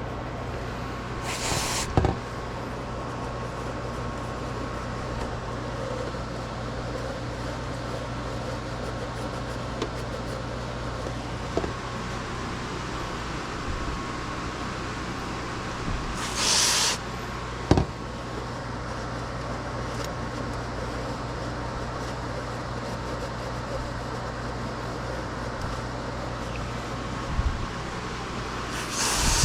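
Steady low hum with three short hisses, each under a second, like bursts from a spray can or air nozzle, and a few sharp clicks and knocks of tools and parts being handled.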